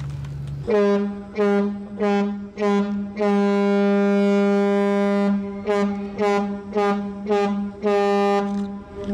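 A departing passenger ferry's horn sounds over a steady lower drone. It gives four short blasts, then one long blast of about two seconds, then a quick run of short blasts.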